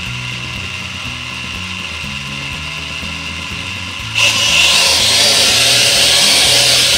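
Small camera quadcopter's four propellers spinning at idle with a steady whine. About four seconds in, the motors throttle up into a much louder hiss as the drone lifts off.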